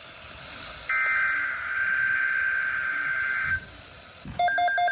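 NOAA Weather Radio SAME header data burst: a steady electronic screech lasting nearly three seconds, starting about a second in after a one-second gap, one of the repeated digital header bursts that encode a severe thunderstorm watch alert. Just before the end, a different pulsing electronic tone pattern begins.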